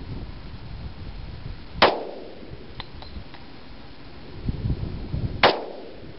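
Two pistol shots from a Glock 20 SF firing 10mm Auto, almost four seconds apart, each a sharp crack with a short echo. A few faint ticks follow the first shot.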